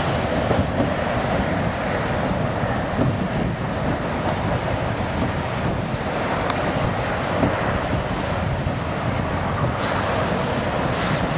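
Strong storm wind blowing across the camera microphone: a steady rushing noise with rough low buffeting.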